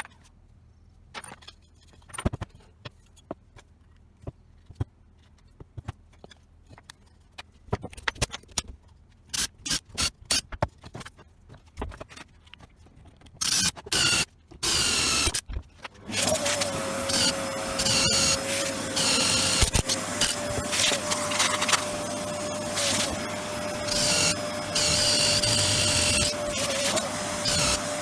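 Scattered clicks and knocks of parts being handled, then about halfway through a power tool starts and runs with a steady whine over a rough grinding noise.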